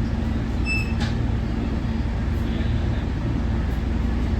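Steady low rumble and hum of a Nippon Sharyo diesel multiple unit heard from on board, with a short high beep just under a second in and a single knock right after it.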